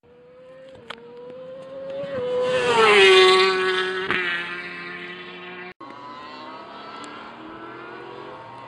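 Classic racing motorcycle engine at high revs passing close by, growing louder to a peak about three seconds in while its pitch drops. After a sudden cut, a more distant motorcycle engine is heard, rising in pitch as it accelerates.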